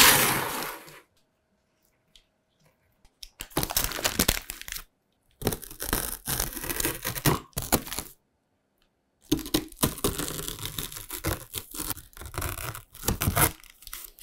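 Baking paper crinkling and crackling, with crunching from the set chocolate rice-crisp slab as it is handled and cut. The sound comes in four separate bursts, each lasting one to five seconds.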